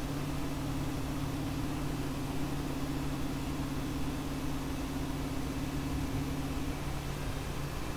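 Desktop FDM 3D printer running: a steady whir of its cooling fans with the stepper motors humming underneath, the hum shifting slightly near the end.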